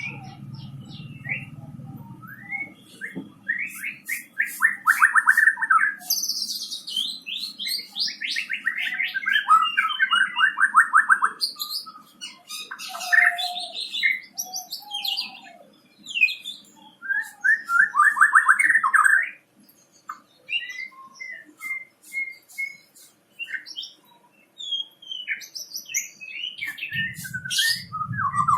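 White-rumped shama (murai batu) singing in full voice: a run of varied whistled phrases mixed with fast rattling trills, broken by short pauses.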